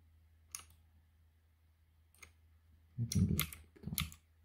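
Computer keyboard keys clicking: single presses about half a second and two seconds in, then a quick run of louder presses around three to four seconds in.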